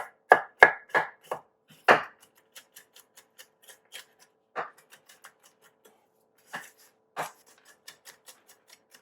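French chef's knife chopping walnuts on a cutting board with a rocking motion: a run of loud chops about three a second for the first two seconds, then quicker, lighter taps with an occasional harder chop.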